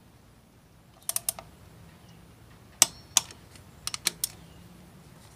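Tekton click-type torque wrench ratcheting and clicking as the motorcycle's clutch cover bolts are tightened to about 8 foot-pounds. Sharp metallic clicks come in small groups a second or two apart.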